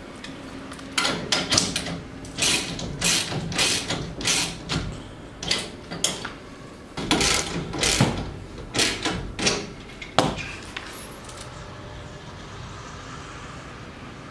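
Ratchet spanner with a 17mm socket driving in an M10 bolt on a steel shelter frame: a run of short ratcheting strokes, about two a second, ending with one sharp click about ten seconds in.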